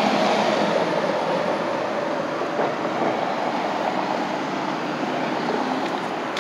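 Road traffic passing on the interstate. It is a steady rush of tyre and engine noise that fades slowly as a vehicle moves away.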